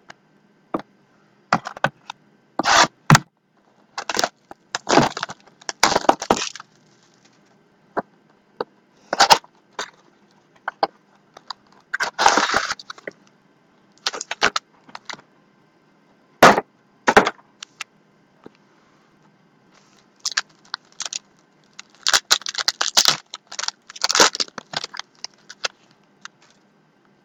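Trading-card pack wrappers crinkling and tearing as packs are opened by hand: irregular sharp crackles in clusters, some lasting about a second, with short pauses between.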